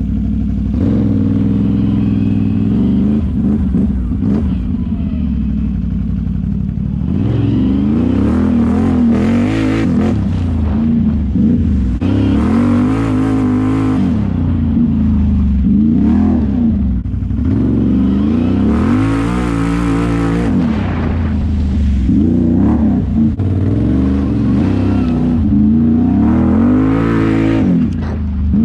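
Can-Am 850 XMR ATV's V-twin engine running, steady for the first few seconds and then revving up and down over and over as it rides through mud, the revs rising and falling every second or two.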